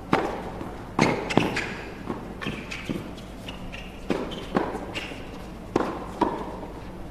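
Tennis ball struck by rackets and bouncing on a hard court in a doubles exchange: a serve, then a string of sharp pops about every half second to second.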